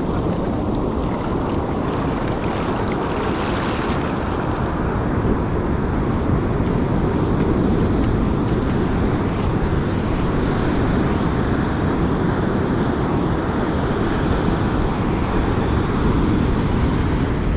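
Surf breaking on a sandy beach, with wind buffeting the microphone: a steady rush of waves and wind.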